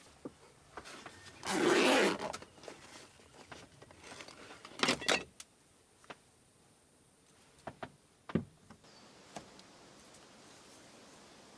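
Handling sounds: a rasp like a zipper being pulled, a quick double rasp a few seconds later, then several sharp clicks and a knock.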